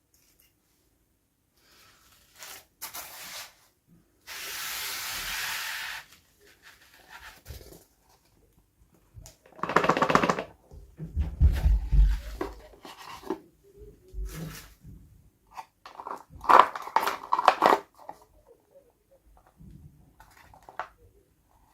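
Hands unboxing small toys, handling and opening the packaging: rustling, crackling and knocking in irregular bursts. A steady hiss lasts about two seconds near the start, with dull thuds about halfway through.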